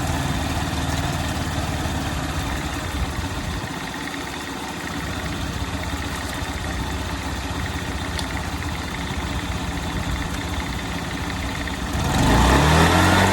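Honda Tact AF79 scooter's 50cc four-stroke engine running with its CVT cover off, idling steadily, then revved up hard about twelve seconds in, the pitch climbing. It is a test run of a newly fitted Dr. Pulley variator and roller weights, revving so the belt rides to the top of the pulley.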